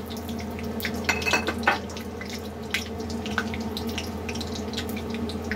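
Ghee with bay leaves heating in an iron kadhai, sizzling with scattered crackles and pops over a steady low hum.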